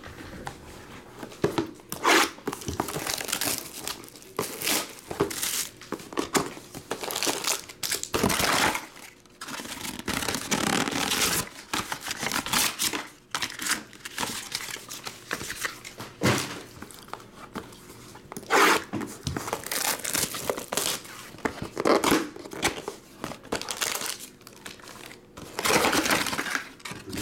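Plastic shrink wrap and foil-wrapped trading card packs crinkling and tearing in irregular bursts as sealed card boxes are unwrapped and opened by hand.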